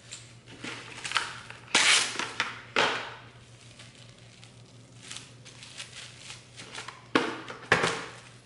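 Plastic cling wrap crinkling as it is folded over a lump of pastry dough and pressed down, in a few short bursts, the loudest about two seconds in and again near the end.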